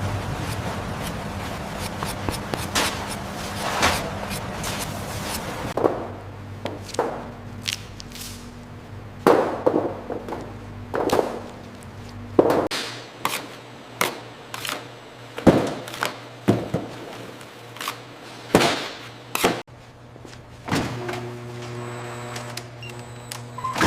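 Irregular thuds and knocks, a dozen or more, coming more often from about six seconds in, over a steady low machine hum.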